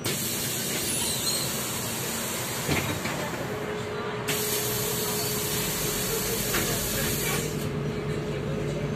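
Inside a MAZ-203 city bus: a loud high hiss of air starts suddenly, breaks off for a moment about four seconds in, and stops about seven and a half seconds in, over the bus's running rumble. A few knocks and a steady whine from about three and a half seconds in come with it.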